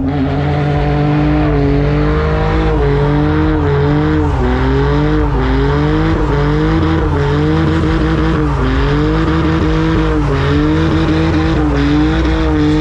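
A car engine held at high revs during a burnout, its note wavering up and down every second or two, over the steady hiss of spinning tyres.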